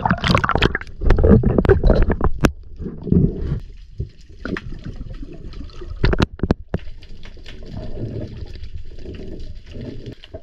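Seawater splashing and gurgling around a free diver as he ducks under from the surface, followed by underwater sound: a few sharp clicks and a steady faint crackling hiss.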